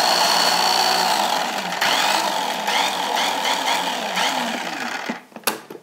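Small electric mini food processor running, its blade puréeing roasted garlic with beef broth into a smooth paste. The motor runs steadily, then stops near the end with a couple of clicks.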